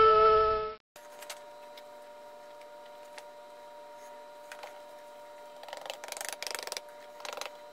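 A howl with its pitch falling, cut off just under a second in. After it comes a faint steady hum with a few light ticks, then a gloved hand rubbing parting powder over coin patterns in a wooden casting flask: a couple of rustling scrapes about six and seven seconds in.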